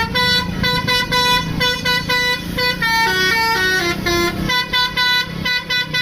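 Bus 'telolet basuri' musical horn playing a fast melody of stepped, flute-like notes, several notes a second, with engine noise underneath.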